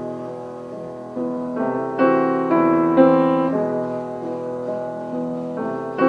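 Background music: slow, gentle piano playing chords that ring out and fade, with new chords struck every half second to a second.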